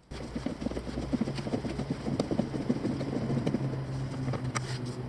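Clunking and rattling from a worn lower steering shaft universal joint on a 2008–2012 Ford Escape: many small knocks in quick succession, over a steady low hum.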